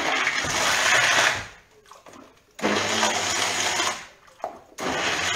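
Electric blender run in three short bursts of a second or so each, whirring as it purées fish broth with small fish, fish heads and bones in it.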